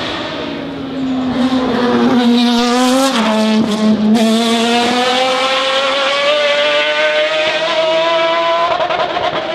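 Racing prototype's engine at high revs as it passes close by; its pitch drops about three seconds in, then climbs steadily as it accelerates away.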